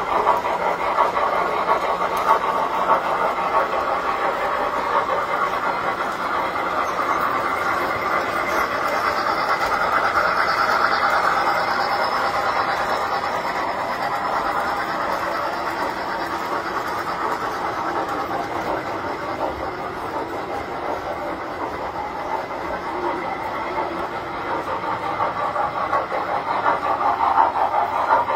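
Tinplate model trains running on metal track: a steady rolling rumble and rattle of wheels on rails, swelling around ten seconds in and again near the end.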